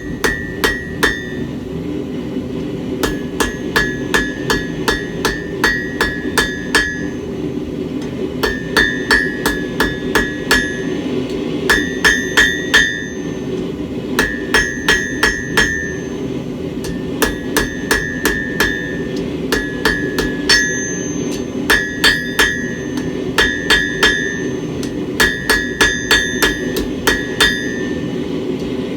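Hand hammer striking a heated steel bar on an anvil, rounding the tip of the bar: quick groups of four to six blows with short pauses between them, each blow ringing with a high metallic tone. A steady low rush runs underneath.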